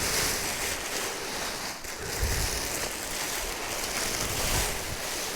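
Wind gusting over the microphone, a steady rushing noise with low rumbling buffets.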